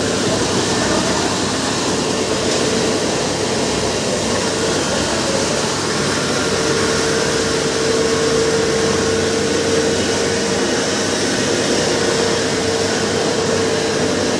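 6N70 Ultra Pro Max mini rice mill machine running steadily: a loud, even whirring noise with a steady whine that grows stronger about halfway through.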